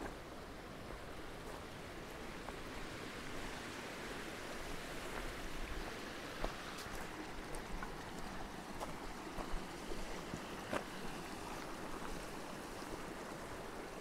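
Small glacial meltwater creek trickling steadily, with faint scattered footsteps on loose gravel.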